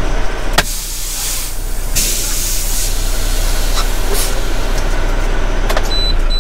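Semi truck's diesel engine idling with a steady low rumble, overlaid by bursts of compressed-air hissing from the truck's air system, with a couple of sharp clicks. A high repeated beeping starts just before the end.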